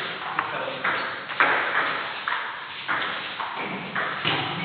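Table tennis rally: a celluloid ball is hit back and forth, making sharp ticks on the rubber bats and bouncing on the table about every half second to a second, each tick echoing briefly in the hall.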